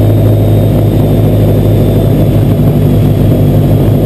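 Freshly built turbocharged Subaru flat-four running steadily with no revving, during its first runs on a base map.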